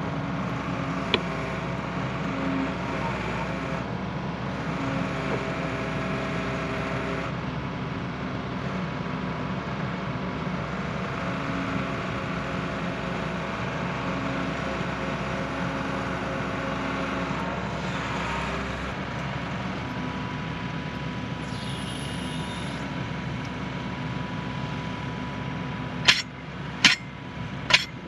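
Excavator's diesel engine running steadily, with the hydraulic breaker not hammering. Near the end come three sharp knocks.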